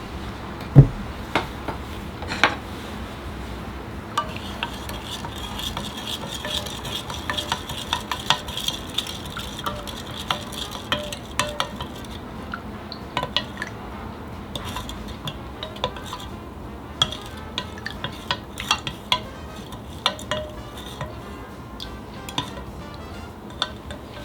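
Ingredients being stirred in a container with a utensil: repeated light clicks and clinks of the utensil against the sides. One louder knock comes about a second in.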